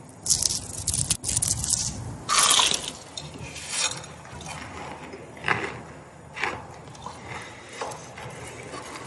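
Crisp food being bitten and chewed: a quick run of crunches in the first two and a half seconds, then scattered single crunches.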